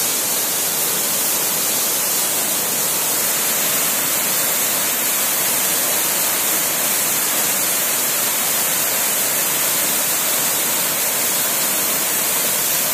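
Waterfall cascading down stepped rock ledges into a pool: a steady, unbroken rush of falling water.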